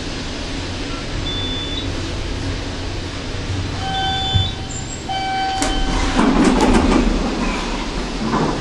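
Otis traction elevator cab running with a steady hum, then two short electronic arrival tones about four and five seconds in. A clunk follows, and the car doors slide open with a rattle, the loudest part.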